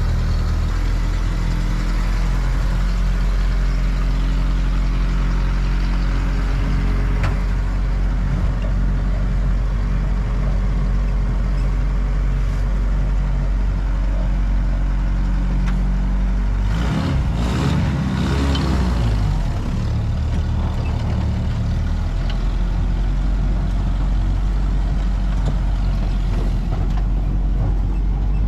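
1952 M38A1 Jeep's four-cylinder F-head engine running steadily while the Jeep is driven, with a brief change in the engine note about two-thirds of the way through before it settles again.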